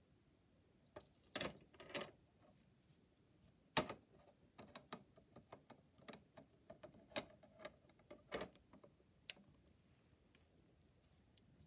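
Plastic Lego Technic parts clicking and knocking as they are handled and pressed together: a scatter of small, sharp clicks, the loudest about four seconds in, with a quick run of lighter clicks after it.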